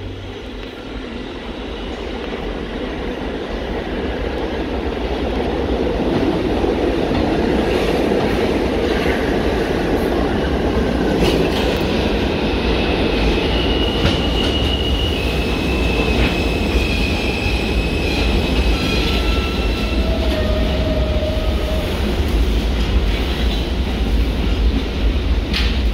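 Alstom-built R160A subway train pulling into an underground station. Its rumble builds over the first few seconds, then high squeals ring out through the middle as it slows to a stop.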